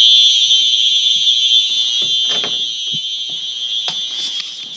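Smoke alarms sounding one continuous high-pitched tone, slowly fading over a few seconds, with a few faint knocks.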